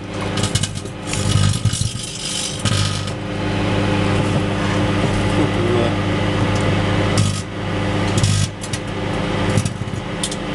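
Microwave oven running with a steady electrical hum while a graphics card inside it crackles and snaps with arcing, in clusters of sharp pops, heaviest in the first few seconds and again in the second half.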